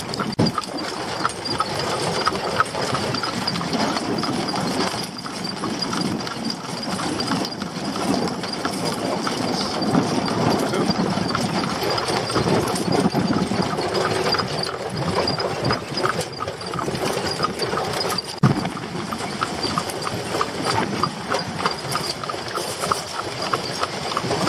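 A horse's hooves clip-clopping steadily on a paved road as it pulls a buggy, with one sharp knock about three quarters of the way through.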